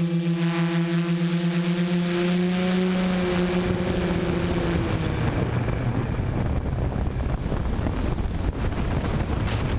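Onboard sound of a tiltrotor quadplane's propeller motors: a steady hum with a fast pulsing beat whose pitch sags a little. After about four seconds the tone gives way to a loud rushing of wind as the aircraft dives nose-down after its transition to forward flight, a stall in the pilot's guess.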